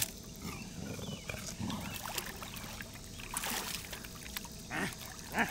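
Pool water splashing and lapping around a person moving in the pool, with a louder splash about three and a half seconds in. Two short voice-like sounds come near the end.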